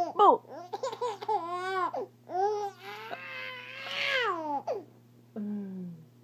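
Six-month-old baby squealing and laughing: a string of short high-pitched calls that rise and fall, with a longer breathy squeal about three to four seconds in.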